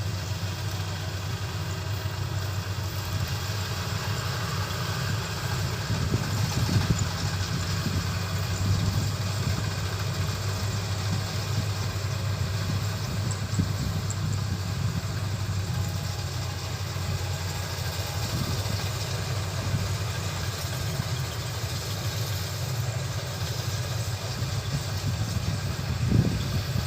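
Combine harvester's diesel engine running steadily, a little louder from about six seconds in.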